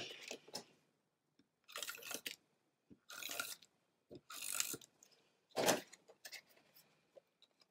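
Glue tape roller drawn across a small paper card in four short strokes, each about half a second long.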